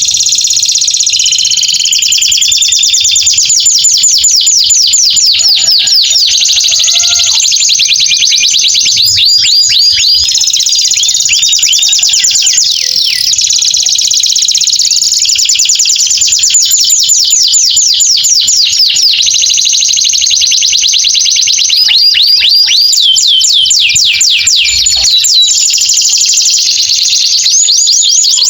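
Male domestic canary singing a loud, unbroken song of fast, high trills, each run of repeated notes sweeping downward.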